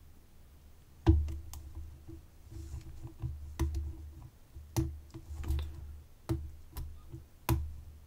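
Hook pick tapping the pin stacks inside a vintage Sargent pin-tumbler padlock while the tension wrench is pulsed: a string of small, sharp, irregular metal clicks, about a dozen, beginning about a second in. Many have a dull low thud from hand contact under them. This is the picker checking for pins that are still binding, trying not to overset any.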